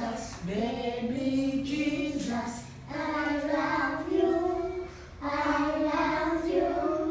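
A small group of young children singing together, in sung phrases broken by short pauses about three and five seconds in.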